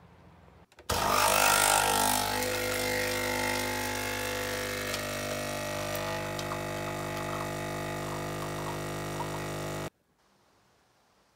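Capsule espresso machine's pump buzzing as it brews coffee into a cup, starting abruptly about a second in, rougher and louder at first, then steady until it cuts off suddenly near the end.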